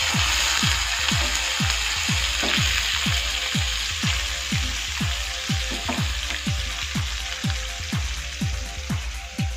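Sliced onions sizzling as they fry in hot oil, stirred with a wooden spoon. The sizzle is strongest at the start and eases off. Background music with a steady beat of about two a second runs underneath.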